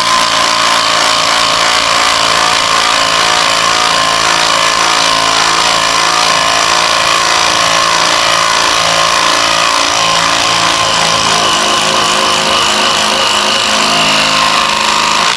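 Stihl MS 250 two-stroke chainsaw running at high revs, cutting wood. It is loud and steady, with small dips in pitch, and stops abruptly at the end.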